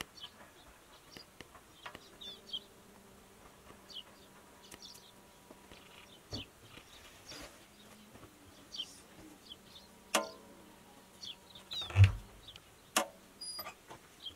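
Intermittent high bird chirps over a faint steady buzz, with a few sharp clinks of metal trays and a bowl, and a dull thump near the end as the dough is handled.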